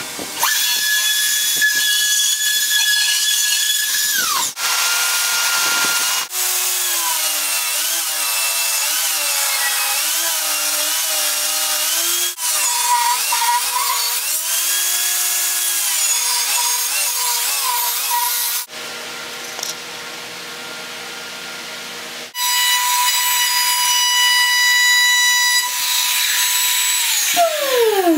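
A sequence of power tools running, joined by abrupt cuts: an electric router whining steadily as it cuts along a board edge, then motors under load whose pitch wavers with the feed, including a table saw ripping a board. Near the end a motor winds down with a falling whine.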